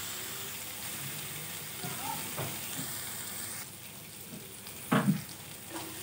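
Spice masala sizzling in oil in a kadhai as it is fried and stirred with a wooden spatula, roasted to the point where the oil separates. The sizzle drops quieter a little past halfway, and about five seconds in the spatula gives a short, loud double knock against the pan.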